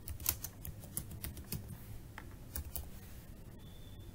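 Computer keyboard being typed on: irregular, quick keystroke clicks that thin out near the end.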